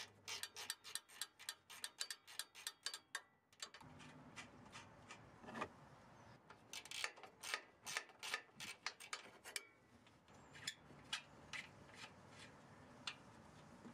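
Socket ratchet with a 14 mm socket clicking in quick runs as the strut's upper mounting nuts are backed off, with short pauses between runs and the clicks thinning out near the end.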